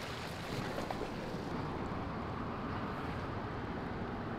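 Steady rush of flowing river water, with wind buffeting the microphone.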